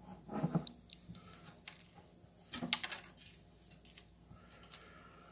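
A cloth wiping a wet tabletop: two main rubbing strokes, about half a second in and again near three seconds, with scattered light clicks and knocks.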